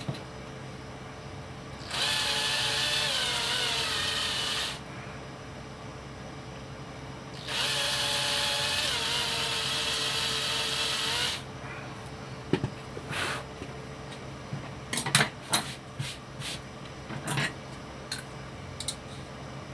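Small power drill running in two bursts of about three and four seconds, its whine wavering in pitch, drilling to free a small cooling fan from its mounting posts. Then scattered light clicks and taps of small parts being worked by hand.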